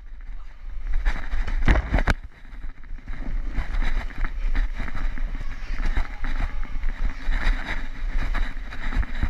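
Rumbling and rubbing on a body-worn action camera's microphone as its wearer climbs and slides through an inflatable obstacle course, with a few sharp knocks about two seconds in.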